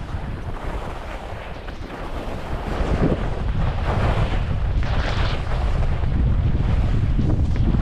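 Wind buffeting a GoPro HERO12 microphone while skiing downhill, a heavy low rumble that grows louder a couple of seconds in. Skis scrape over the snow in a few surges near the middle.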